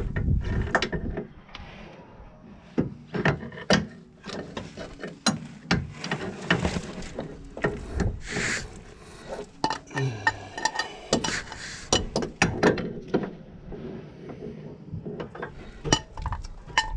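Adjustable spanner clinking and scraping against the inner track rod end of a VW Crafter's steering rack as it is worked onto the large nut in a cramped space, with irregular metal clicks and knocks; the tight space makes getting a grip difficult.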